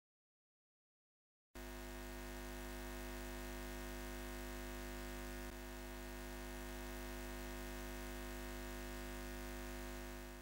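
A steady electronic drone with many held tones, low and even. It starts suddenly about a second and a half in after dead silence and fades out at the end.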